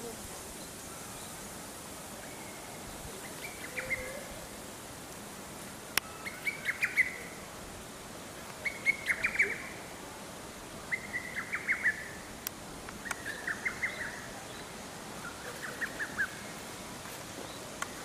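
A songbird singing a short, stuttering phrase of quick notes, repeated about every two seconds, six times.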